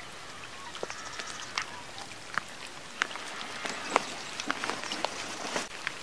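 Rain falling on a lake, a steady hiss with many separate drops striking the water and standing out as sharp ticks.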